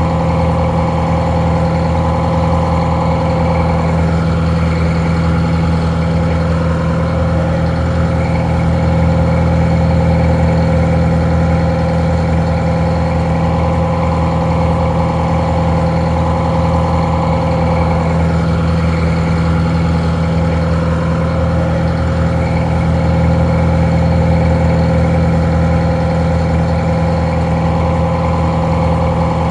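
Detroit Diesel 4-71, an inline four-cylinder two-stroke diesel, idling steadily with an even, unchanging note. The engine is a winch power unit.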